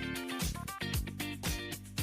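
Background music with a steady beat: a kick drum about twice a second under plucked guitar-like notes.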